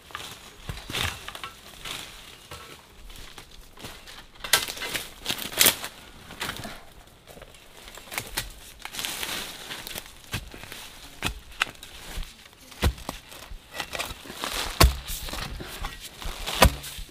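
Footsteps crunching through dry bamboo leaf litter, with twigs and bamboo stems rustling and snapping as someone pushes through undergrowth. Several sharper knocks come in the last few seconds.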